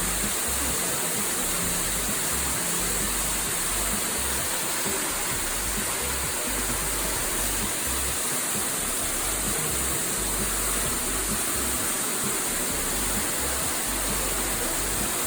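Large underground waterfall pouring down inside a cave, a steady, unbroken rushing of falling water.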